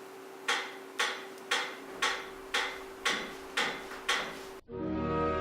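Eight sharp, evenly timed strikes, about two a second, over a faint steady hum. Music cuts in abruptly near the end.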